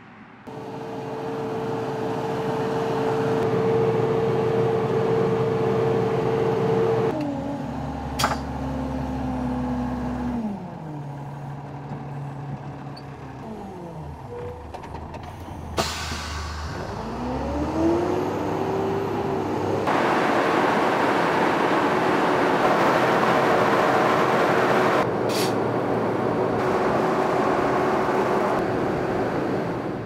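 Big A 2800 floater's 8.3-litre turbocharged straight-six Cummins engine running under load in the field. Its pitch falls in two steps partway through, climbs again shortly after, then holds steady, with a few sharp clicks along the way.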